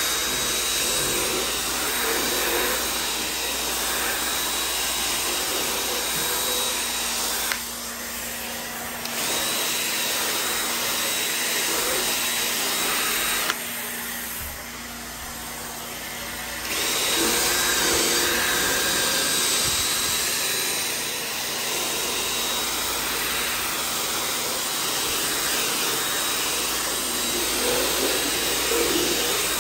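Cordless drill spinning a round scrub brush against fabric sofa upholstery, running steadily and easing off twice, about a quarter of the way in and again around the middle.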